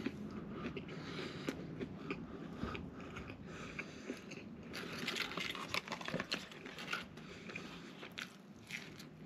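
Chewing a mouthful of double Big Mac, with irregular wet mouth clicks and soft crunches.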